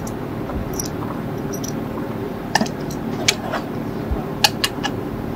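A series of sharp clicks as .308 Winchester cartridges are thumbed one by one into a rifle magazine, starting about halfway through.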